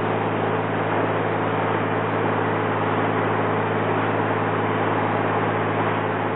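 1954 Chris-Craft Sea Skiff's inboard engine running steadily while underway, a constant drone under a steady rush of wind and water.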